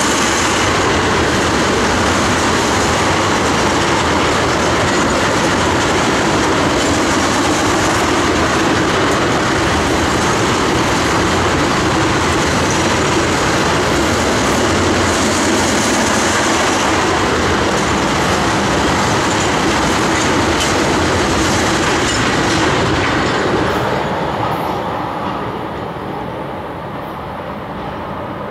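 Freight train of ethanol tank cars rolling past in a loud, steady rush of steel wheels on rail. The sound fades about 24 seconds in as the end of the train goes by.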